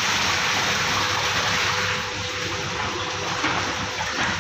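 Water pouring out of a tipped metal tub and splashing across a tiled floor: a steady rushing splash that eases a little about halfway through.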